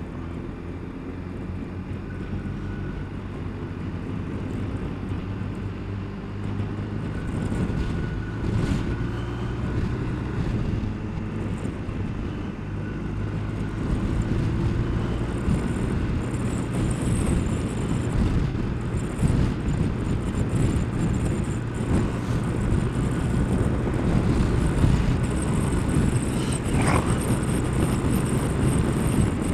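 Kawasaki ZZR1200 inline-four engine heard from the rider's seat, accelerating with its pitch climbing over the first half and then cruising. Wind and road rush grow louder with the speed.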